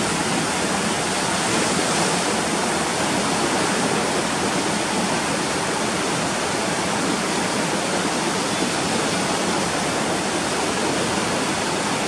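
Swollen, muddy floodwater of the Sapta Koshi river rushing and churning past the Koshi Barrage piers, a steady, unbroken rushing of water from a river in flood near danger level.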